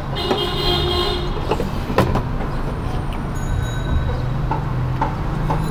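Steady low rumble of street traffic, with a held tone in about the first second and a few sharp clicks scattered through.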